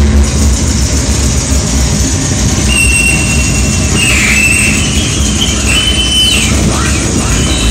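Harsh noise music from a DIY oscillator with add-on capacitors, fed through a Line 6 DL4 delay and a giga delay pedal: a loud, dense wash of noise over a low rumble. High whistling tones come in about three seconds in, and a tone glides downward near the end.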